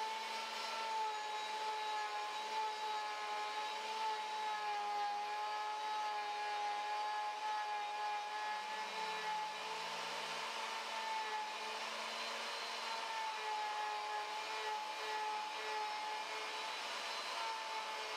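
Router motor running with a steady high whine whose pitch wavers slightly, its bit cutting a spiral groove into a pine cylinder held in a lathe.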